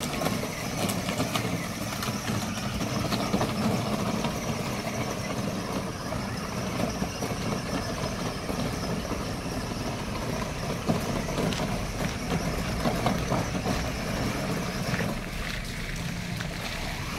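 Battery-powered ride-on toy jeep driving through muddy puddles: a steady whir from its electric drive motors and gearboxes, mixed with the tyres splashing and sloshing through the water.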